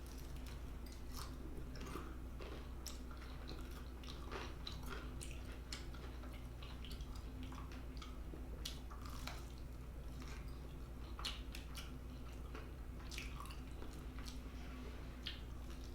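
Close-miked chewing and biting into a sauced fried chicken leg: irregular crunches and wet clicks of skin and meat, over a steady low hum.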